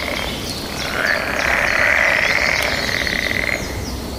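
Frog chorus: a steady, high-pitched call held for a few seconds over a dense background of short, falling chirps.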